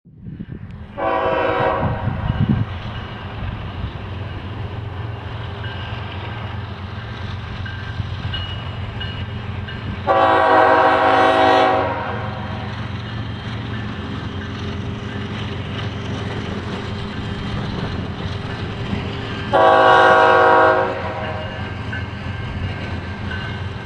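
Freight train locomotive air horn sounding three long chord blasts, about a second in, about ten seconds in and just before twenty seconds, over the steady low rumble of diesel freight trains running through the junction.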